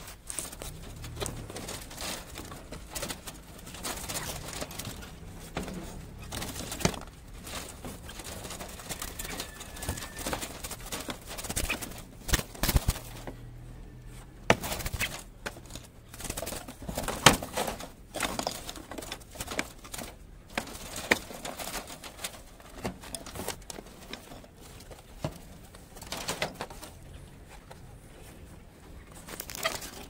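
Domestic pigeons cooing in a loft, with scattered sharp clicks and knocks throughout, the sharpest about seventeen seconds in.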